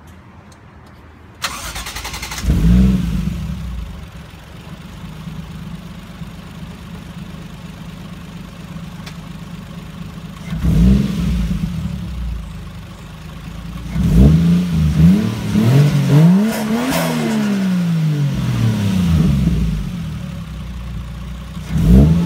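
Toyota 1JZ-GTE VVTi turbocharged straight-six with a Kakimoto Racing exhaust, catching about a second and a half in and settling into an idle. It is blipped once soon after, again about ten seconds in, several times in quick succession in the latter half, and once more near the end.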